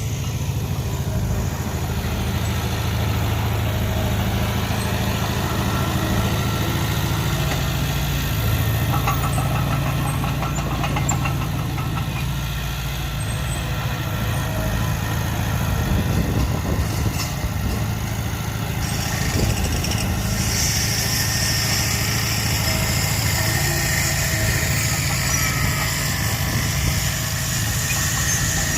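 Heavy earthmoving machinery's diesel engine running steadily with a low rumble; a higher rushing noise joins about twenty seconds in.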